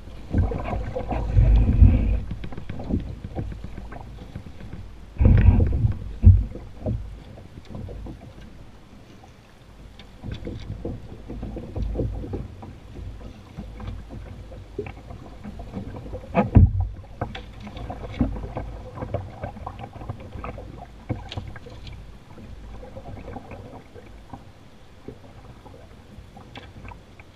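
A canoe being poled through a shallow, rocky riffle: running water around the hull, with scattered knocks and clunks from the wooden pole and the canoe. Louder low thumps come about a second in, around five to six seconds in, and once more past the middle.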